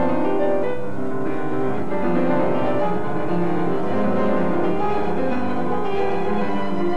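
Piano and orchestra playing a classical-style piece, the piano to the fore over a steady, full accompaniment.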